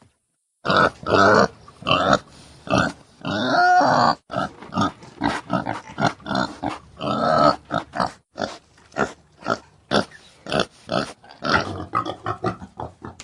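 Domestic breeding boar grunting. A rapid, irregular series of short grunts, several a second, begins about a second in, with a few longer, drawn-out grunts among them.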